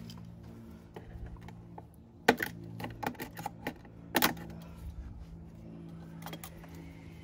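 Scattered sharp clicks and light clatter of a knife and gloved hands working at a plastic engine valve cover, cutting out a zip tie that held the new gasket in place. Two louder snaps come about two and four seconds in, over a steady low hum.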